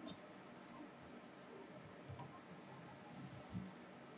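A few faint computer mouse and keyboard clicks against near silence, with a soft low thump about three and a half seconds in.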